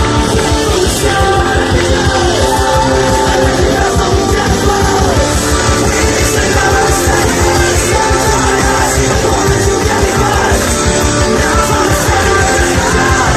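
Loud rock music with singing and a fast, steady beat.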